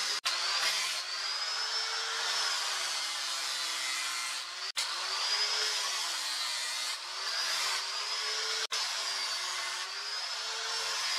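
Electric angle grinder with a sanding pad sanding a strip of wood: a steady motor whine whose pitch sags and recovers over and over as the pad is pressed onto the wood. The sound breaks off for an instant three times.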